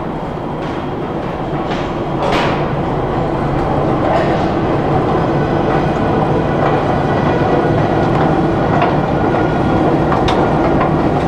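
Stockholm metro train running through the station, a steady rumble that grows louder about two seconds in, with a few sharp clicks.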